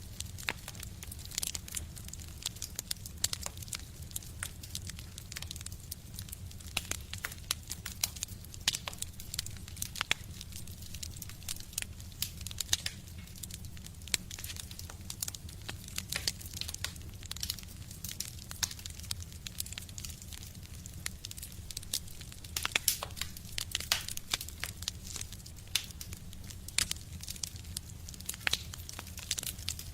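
Wood fire burning in a stove: irregular crackles and sharp pops over a steady low rumble of the flames.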